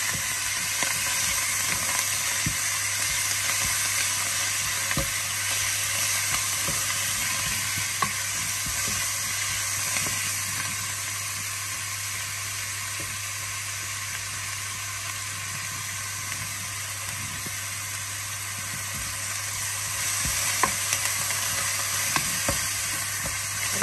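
Chopped onions, garlic, ginger and fresh coriander sizzling steadily in a pot, the aromatics being sautéed for a few minutes. A wooden spoon stirs them now and then, with a few light knocks against the pot.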